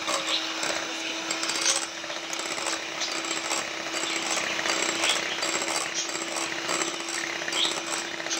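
Electric hand mixer running at a steady speed, its beaters whipping raw eggs in a bowl into a froth; the motor gives a steady hum under the whirring of the beaters.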